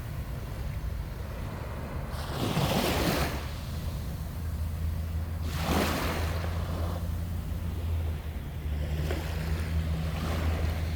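Sea waves washing onto the shore, swelling and fading in about three surges, over a steady low hum.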